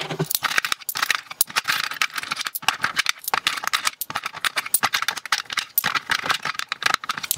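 Loose coins clinking and rattling as a hand scoops them out of the plastic overflow pocket of a Royal Sovereign FS-500 coin sorter: a steady run of quick metallic clicks.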